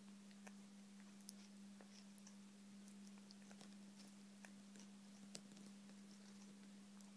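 Congo African grey parrot eating from a small plastic fruit cup: faint, scattered clicks and ticks of its beak working in the cup, over a steady low hum.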